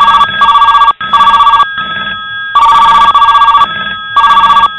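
Old-style telephone bell ringing loudly: a rapid bell trill in short bursts, about four of them, with brief pauses between.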